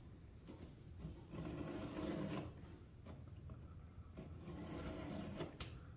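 A 3/16-inch round chainsaw file in a sharpening guide rasps back and forth across the cutter teeth of a Ryobi 8-inch chainsaw's chain, sharpening a chain that had gone dull. The strokes come in two spells, about a second in and again past four seconds.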